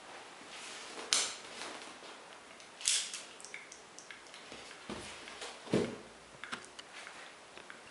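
Handling sounds of a small steel pocket pistol: two sharp clicks, then two dull knocks about five and six seconds in as it is picked up and set back down on a cloth-covered table, with a few light clicks after.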